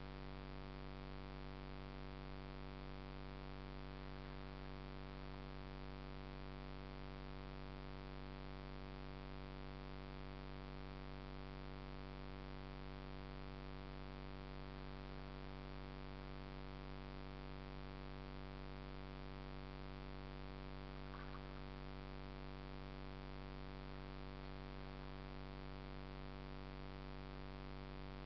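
Steady electrical hum with many even overtones and a hiss above it, unchanging in level throughout.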